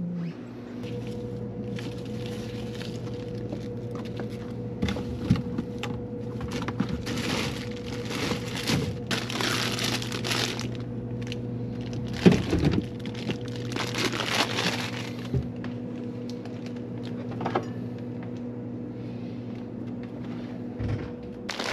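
Kitchen food-prep handling: a series of scraping, rustling strokes about a second long, with a few sharp knocks, the loudest about twelve seconds in. A steady electrical hum sets in about a second in and runs underneath.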